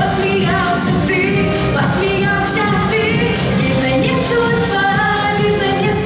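A young woman singing solo into a handheld microphone over a pop backing track with a steady drum beat.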